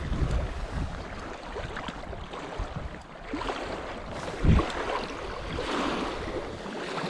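Wind buffeting the microphone over choppy lake water lapping close by, with a dull thump a little past the middle.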